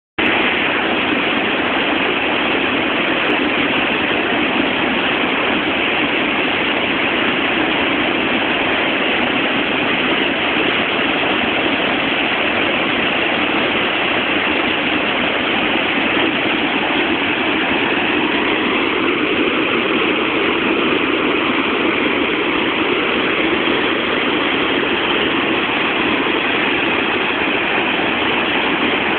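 Waterfall: a steady rush of falling water, heard through a mobile phone's microphone, which cuts off the higher sounds.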